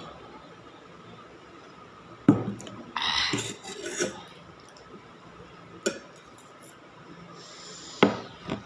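Metal spoon and fork clinking against a stainless steel bowl: a few sharp clinks several seconds apart, with a short scrape about three seconds in.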